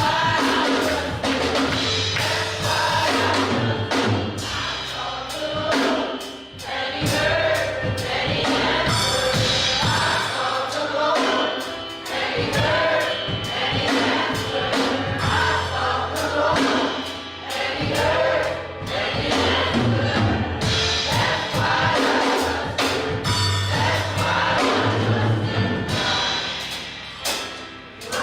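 Gospel choir singing with a band, with bass and drums keeping a steady beat.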